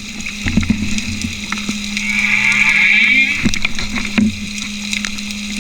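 Humpback whale song heard underwater: drawn-out tonal calls that glide in pitch, over a steady low hum and scattered clicks.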